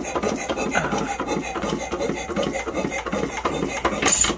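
1905 Domestic side-shaft hit-and-miss engine running, a rapid mechanical clatter from its valve gear, side shaft and latch-out linkage, with one sharp bang near the end.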